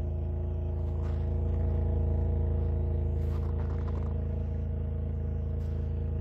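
MINI Clubman Cooper's BMW 1.5-litre three-cylinder petrol engine idling steadily, heard at the exhaust, its note swelling slightly about two seconds in. It is running cleanly shortly after a cold start in −12 °C frost.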